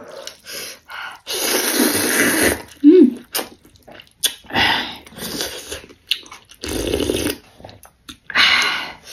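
A person slurping bún bò Huế rice noodles from a bowl of soup, in wet sucking rushes: one long slurp beginning about a second in, then three shorter ones spread through the rest.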